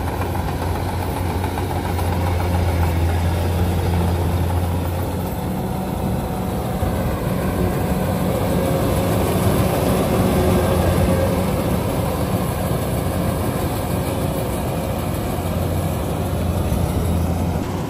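Rice combine harvester running steadily, a continuous low engine drone with mechanical noise.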